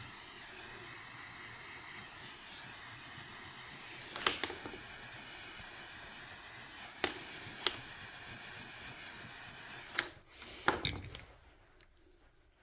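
A small electric device running with a steady hiss and faint whine, with a few sharp clicks and taps of handling on the bench. About ten seconds in it cuts off with a click, and a couple of knocks follow.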